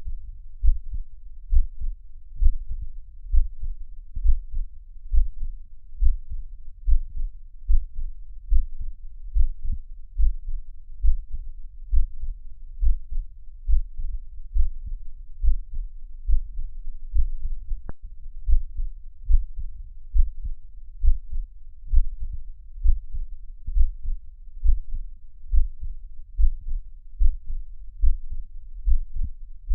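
Heartbeat: a steady, even rhythm of low, dull thumps, a little over one beat a second.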